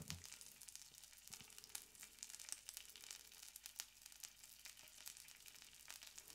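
Faint, irregular crackling sizzle of A5 Japanese wagyu beef frying, its fat rendering out.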